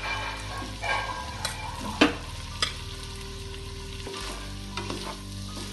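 Cooked rice being stirred into a hot kadai of lemon-juice tempering with a spoon: scraping and light sizzling, with a few sharp clacks of the spoon against the pan, the loudest about two seconds in.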